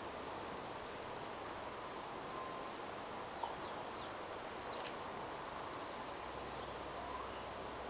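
A few short, thin, high chirps of a Ryukyu Japanese white-eye, quick falling notes clustered about halfway through, over a steady background hiss.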